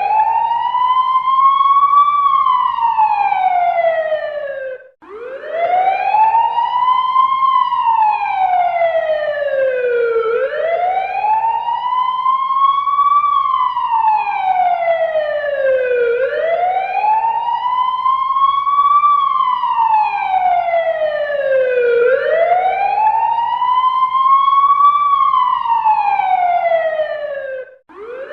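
Fire truck siren sounding a slow wail, each cycle rising for about two seconds and falling for about three, repeating five times. It cuts out for a moment about five seconds in and again just before the end.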